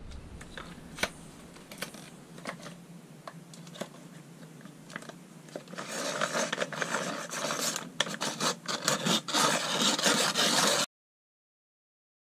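Pencil being sharpened in a hand-held metal pencil sharpener. Scattered clicks and scrapes at first, then about five seconds of dense scraping and clicking as the blade shaves the pencil, cutting off suddenly.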